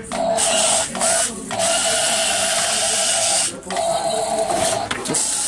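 Tiny electric motors and plastic gearboxes of micro RC toys (a mini tank and a micro off-road buggy) whirring as they drive, in runs of a second or two broken by short stops as the throttle is let off.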